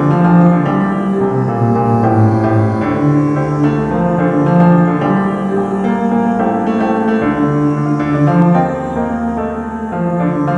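Piano music for a choir anthem, with long held low notes carrying the bass line.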